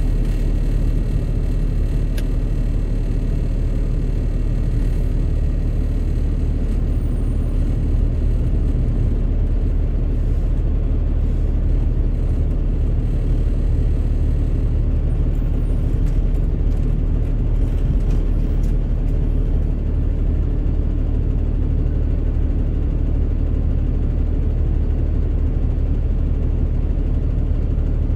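Steady low engine rumble of slow-moving city traffic, with coach buses and cars idling close alongside.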